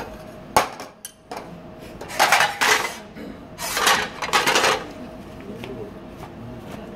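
Metal cookware and utensils on a gas range: a sharp clink just over half a second in, then two harsh scrapes of about a second each, near two and four seconds in. A faint steady hum runs underneath.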